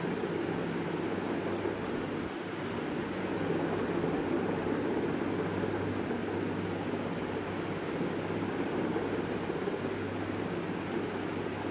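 Six short high-pitched chirps, each about half a second long, mostly bunched between about four and ten seconds in, over a steady low hum.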